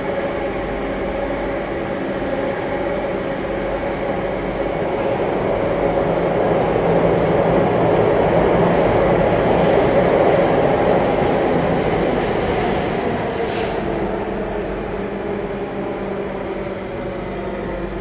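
Metro train running through a tunnel, heard from inside the carriage: a steady rumble of wheels on rails under a hum of the motors. It grows louder toward the middle and eases off near the end.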